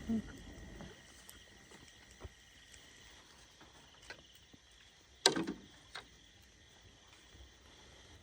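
Faint, steady insect chirring, broken by a few light knocks and one sharper knock about five seconds in.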